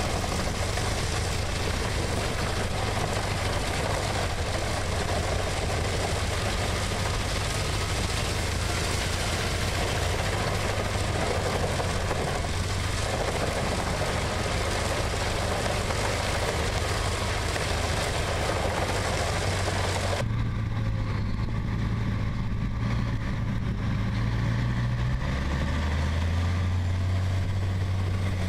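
Heavy machinery running steadily: a deep engine note under a loud, rough mechanical noise. About twenty seconds in the rough noise cuts off abruptly, leaving mostly the low engine running, whose pitch drops a little a few seconds later.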